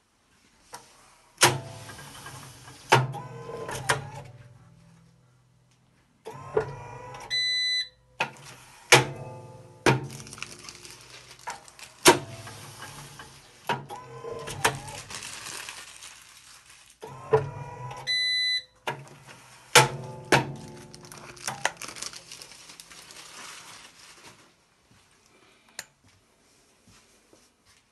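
Automatic table-top tray sealer running two sealing cycles: a motor hums as the tray travels, with sharp mechanical clunks as the sealing head closes and opens. Each cycle has one short electronic beep, about eleven seconds apart.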